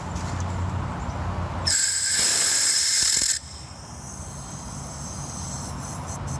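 Pressurised refrigerant hissing out of an air conditioner's Schrader service port for just under two seconds, with a whistling edge. It starts about two seconds in and cuts off sharply as the valve core is seated.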